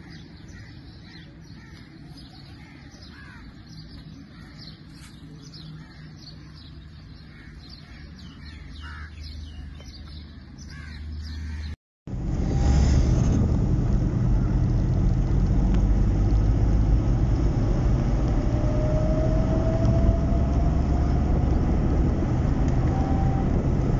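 Crows cawing over a low, distant rumble of traffic; after a sudden cut about halfway through, the much louder, steady low rumble of a vehicle running on the road, with a faint slowly rising whine.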